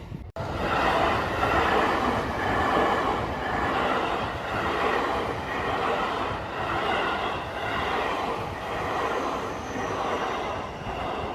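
A commuter train passing close by, its wheels running over rail joints in a steady rhythmic clatter, about one beat a second.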